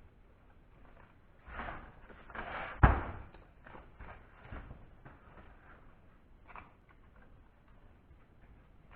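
Knocks and rustling as the palm sander is handled on the workbench, with one sharp knock just before three seconds in; the sander's motor is not running.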